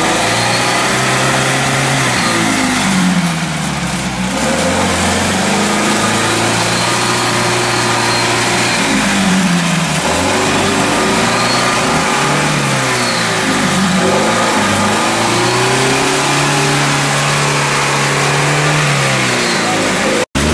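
UAZ-469 engine revving up and down again and again under load as the 4x4 works through deep mud, its pitch rising and falling every couple of seconds.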